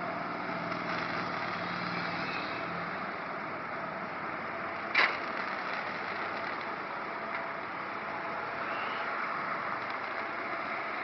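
A single firework bang about five seconds in, sharp and brief with a short fade, over a steady background noise.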